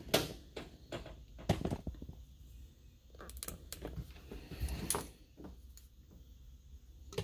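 Compression tester gauge, hose and metal fittings being handled on a workbench: scattered knocks and clicks, the loudest just after the start, about a second and a half in, and near five seconds in.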